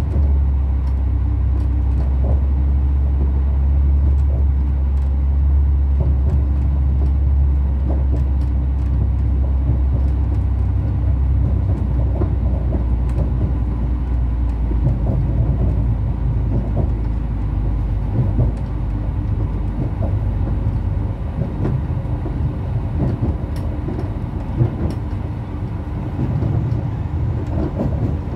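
Cabin sound of an SNCF B 82500 bi-mode AGC railcar running at speed: a steady low drone with a constant hum and scattered clicks of the wheels over the track. The drone eases somewhat in the second half.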